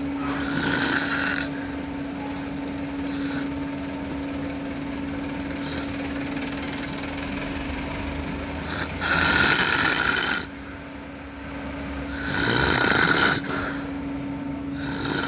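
Baby snoring: rasping, noisy breaths at uneven intervals, the loudest three at the start, about nine seconds in and about twelve seconds in. A steady low hum runs underneath.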